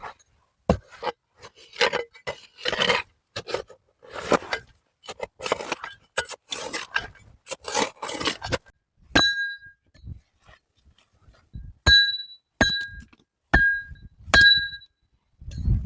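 Irregular scraping and rustling strokes of hard material being handled, then five sharp knocks, each ringing briefly with the same bright tone, as a hard object is struck during stone-shelter building.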